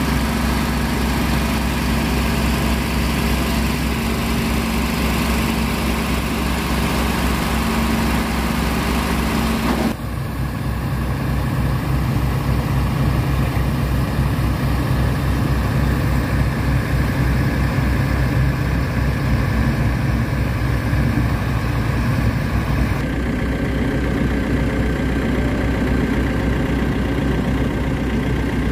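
Truck diesel engine idling steadily, the Fuso boom truck's engine running close by. About ten seconds in the engine hum changes abruptly to a different, rougher idle, and shifts again a few seconds before the end.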